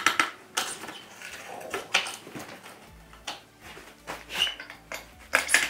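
Scattered clicks and knocks of a mountain bike frame and its quick-release skewers being handled, with the sharpest knocks right at the start and just before the end.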